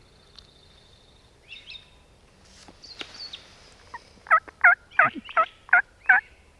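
A quick, even series of six turkey yelps, about three a second, starting a few seconds in, with faint small-bird chirps before them.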